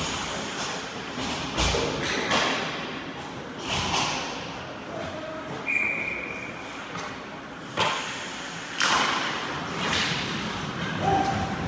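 Ice hockey play on a rink: skate blades scraping across the ice in repeated swells, with several sharp thuds of the puck, sticks or players hitting the boards.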